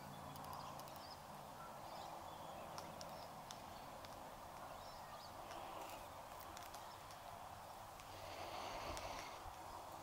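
Faint, scattered clicks and cracks of a glossy black cockatoo's bill working she-oak cones as it feeds, over a steady background hiss.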